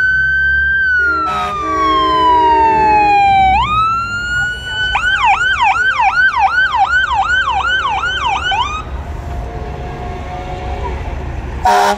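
Electronic emergency-vehicle siren sounding a slow rising and falling wail, then switching to a fast yelp of about three sweeps a second before cutting off a few seconds later. Low truck-engine rumble underneath, and a short horn blast near the end.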